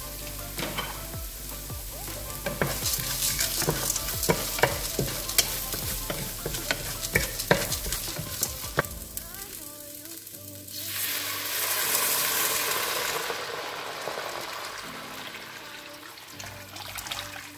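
Sliced onions and green split peas frying in oil in a pot while a wooden spoon stirs them, with many sharp taps and scrapes of the spoon against the pan over the sizzle. About eleven seconds in, water is poured into the hot pot and a loud hiss swells, then fades over the next few seconds.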